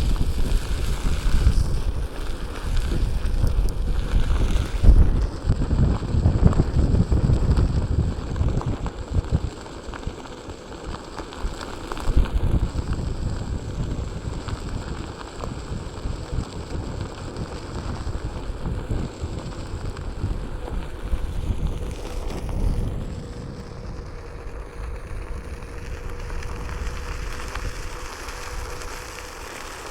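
Wind buffeting the microphone during a Onewheel ride: an uneven rumbling rush that gusts louder and softer, strongest in the first third and calmer after.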